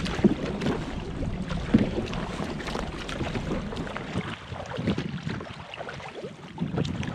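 Canoe paddles dipping and splashing in lake water, with water slapping the hulls. Two sharp knocks come about a quarter second and just under two seconds in, over a low wind rumble on the microphone that fades away near the end.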